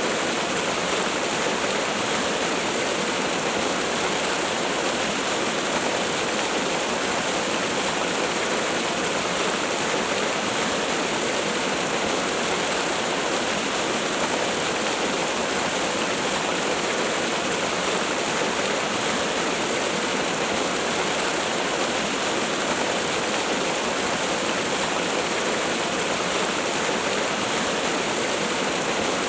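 Waterfall: steady rushing of falling water, an even hiss with no breaks or changes.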